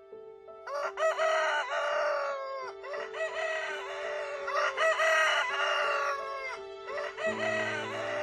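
Rooster crowing four times in a row, each crow long and drawn out, over soft background music.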